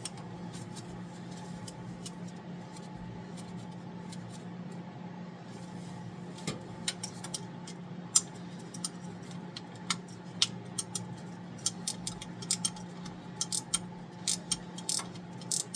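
Scattered metallic clicks and clinks of hand tools working on metal, starting about six seconds in and coming more often toward the end, over a steady low hum.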